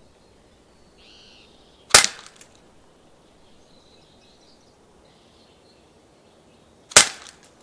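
Two loud gunshots from target shooting, about five seconds apart, each sharp with a short echoing tail.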